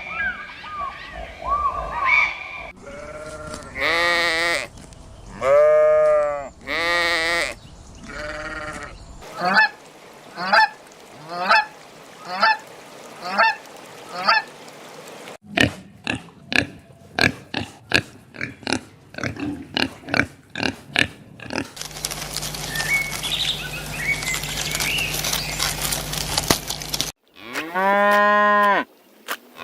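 A string of farm animal calls: geese honking in long calls and then in a run of short, evenly spaced honks, followed by a series of sharp clicks and a stretch of steady noise with a low hum. A cow starts mooing near the end.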